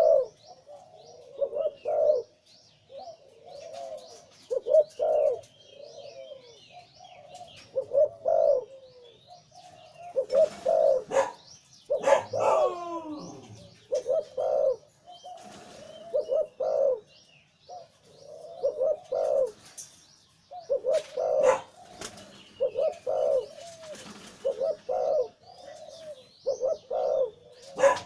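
A male zebra dove cooing in repeated phrases of short, rapid, low notes, a big-voiced bird of the 'liu tan' cooing type. Other small birds chirp faintly and high in the background.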